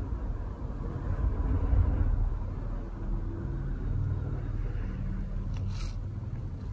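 A low, steady rumble with a faint hum, and no sharp cracks.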